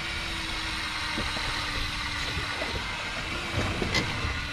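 Yamaha outboard motor idling with a steady hum, under a rush of wind and sea noise. There is a light click about four seconds in.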